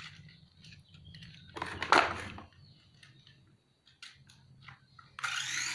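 Light clicks and a louder clatter of a plastic toy remote-control rock crawler being handled, about two seconds in. Near the end a steady whirring starts suddenly: the toy's small electric motor begins to run.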